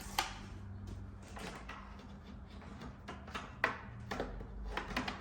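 Scattered sharp clicks and knocks of the new side mirror and its wire being worked into a pickup truck's door, with a faint steady hum underneath.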